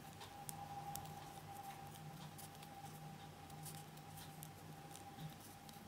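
Faint scattered ticks and scratches of a fine 1.3 mm metal crochet hook working mercerized cotton thread between the fingers, over a faint steady hum.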